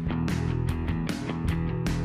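Background music: strummed guitar over a steady drum beat.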